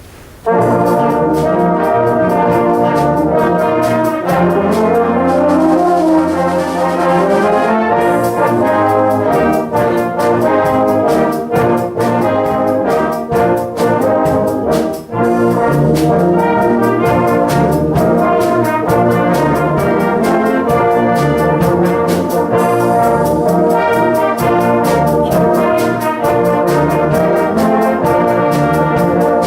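Brass band playing a lively arrangement, the full band coming in together about half a second in, over a steady percussion beat.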